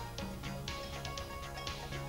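Music with a steady drum beat over a bass line and held notes.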